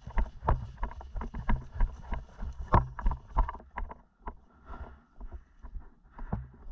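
Footsteps with gear jostling: an irregular run of thumps, about two or three a second, that thins out about four seconds in.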